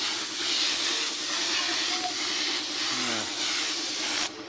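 Gravity-feed air spray gun hissing steadily as it sprays clear coat, cutting off suddenly near the end.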